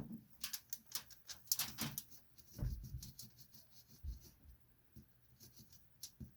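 Soldering iron tip scraping on a piece of aluminum under oil in short, irregular scratches, working through the oxide to get solder to stick, with a couple of dull knocks in the middle.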